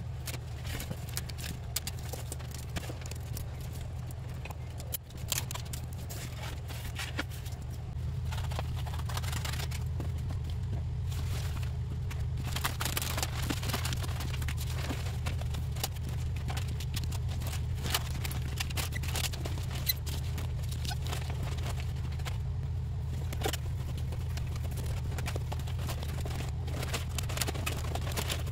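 Marble-pattern self-adhesive vinyl film being unrolled, handled and smoothed by hand onto a granite countertop: irregular crackling, rustling and scraping, over a steady low hum.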